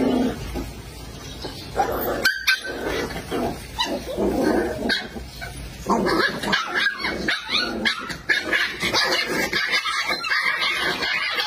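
Several puppies yipping and barking in short, overlapping calls, busier in the second half.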